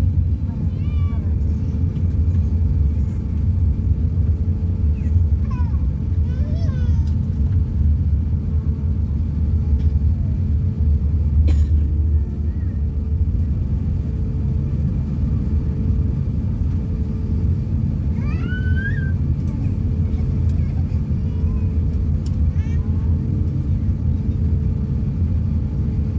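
Airliner cabin noise while the plane taxis: a steady low rumble from the engines and rolling wheels, with a steady hum. A few short high rising squeals sound over it, the clearest about two-thirds of the way in.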